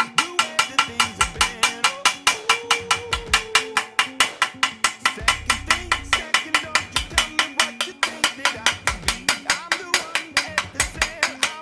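Background music with a fast, steady beat of sharp clicks, about six a second, under a melody and bass line.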